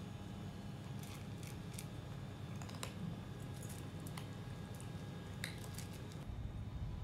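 Kittens eating wet cat food from a stainless steel bowl: irregular small wet clicks and smacks of chewing and lapping, some of them against the metal.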